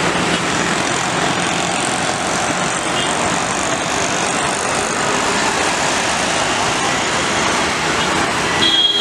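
Steady roar of jet airliner engines on the runway. Near the end a steady high whine sets in over it.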